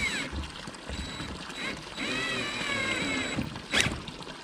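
Cordless drill driving a screw into a plastic pool skimmer faceplate, its motor whining and wavering in pitch for about a second and a half in the middle. A sharp click follows near the end.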